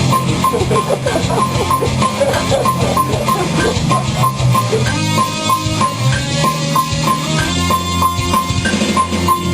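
Heavy metal playing on electric guitar and drums, with a metronome click track ticking steadily about twice a second.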